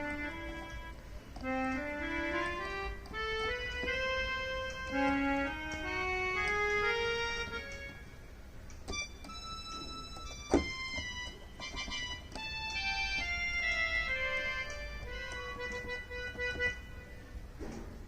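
Yamaha PSR-I400 portable keyboard being played, a string of held notes climbing in rising runs, then more notes in a higher and falling line. A single sharp click about ten and a half seconds in.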